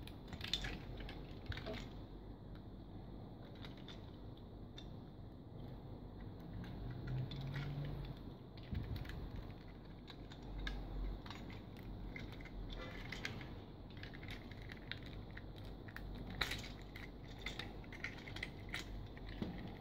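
Plastic parts of a bootleg Cybertron Optimus Prime action figure clicking and rattling in the hands as its legs and truck-cab chest are moved and transformed: scattered small clicks and taps, a few in quick clusters.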